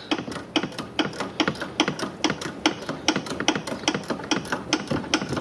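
Ratcheting wrench clicking in a fast, even run as it tightens the nut on a new sway bar link.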